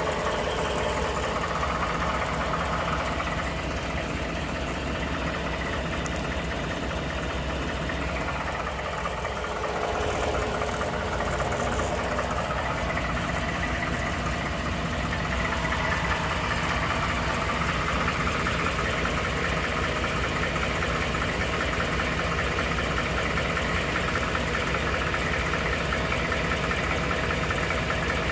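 Ford 5.0 Coyote V8 in a 2012 F-150 running steadily with a fast, even knocking from the engine. The owner, going by other 5.0 owners, takes the knock for an oblong cylinder.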